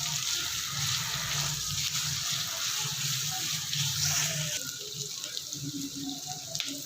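Chopped onion sizzling steadily in hot oil in a kadai as it is sautéed toward golden brown. The sizzle eases a little about four and a half seconds in.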